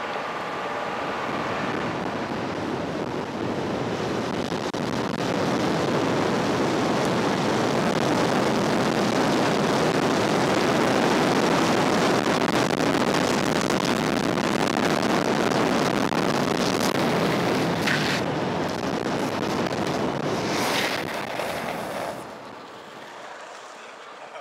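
Longboard run down an asphalt street: a steady rush of wind on the microphone mixed with wheels rolling over the pavement, building over the first few seconds. Brief higher hissing scrapes come about 17 and 21 seconds in, and the noise falls away near the end as the run stops.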